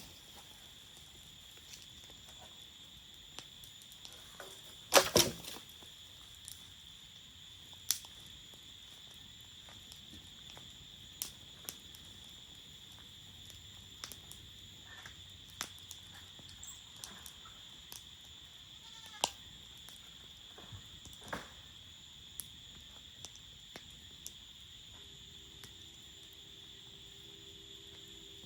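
Crickets chirring in a steady, high, unbroken tone, with campfire wood crackling and popping now and then; the loudest pops come in a quick cluster about five seconds in.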